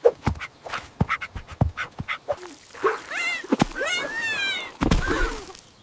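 A quick run of taps and thuds, then a cartoon kitten's bending cries, and a heavy thump about five seconds in.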